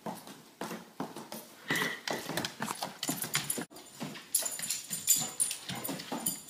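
Dog boots clomping on a hardwood floor as a golden retriever walks in them, a run of uneven, irregular footfalls.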